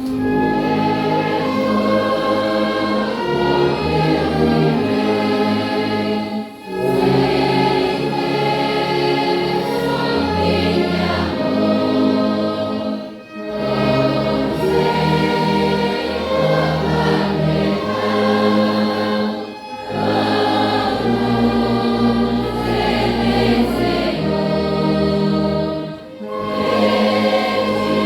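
Voices singing a slow hymn in chords over instrumental accompaniment, with a tuba carrying a stepping bass line. The music moves in phrases of about six seconds, with a short break between each.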